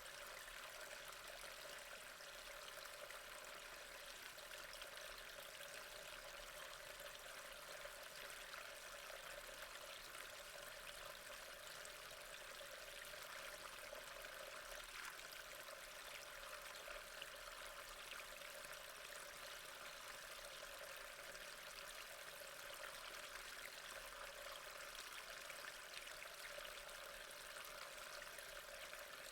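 Steady rain falling, an even hiss of many small drops with no change in strength.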